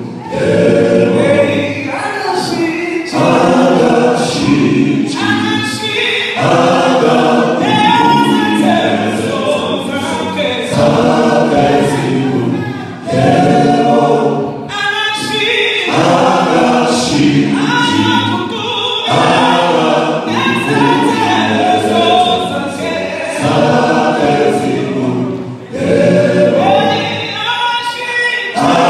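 Male vocal group singing unaccompanied in close harmony, many voices together through stage microphones, in phrases broken by short pauses.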